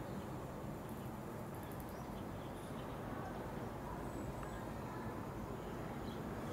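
Steady outdoor background noise, heaviest in the low range, with a few faint high chirps about a second in.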